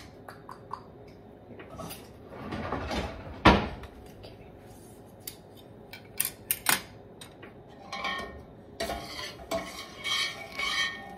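Kitchen utensils clinking and knocking, with one loud knock about three and a half seconds in. Near the end a spoon scrapes and clinks around a stainless steel saucepan, stirring heating sugar syrup so it does not stick to the bottom.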